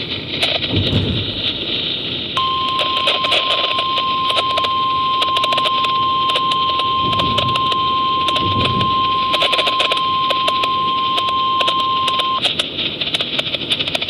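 Midland NOAA Weather Radio's speaker sounding the 1050 Hz warning alarm tone, one steady high tone held for about ten seconds over hissing, crackling static, starting about two seconds in and cutting off abruptly near the end. The tone signals that an Emergency Alert System warning message is about to be broadcast.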